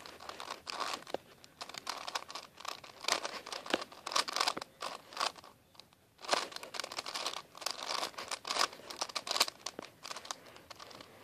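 A 4x4x4 Rubik's cube being turned by hand: quick, irregular clicking and rattling of its plastic layers, with a short pause about six seconds in.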